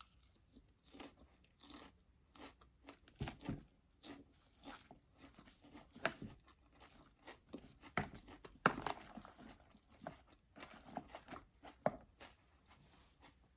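Crisp, irregular crunching of raw salad vegetables being chewed close to the microphone, with one louder crunch about two-thirds of the way through.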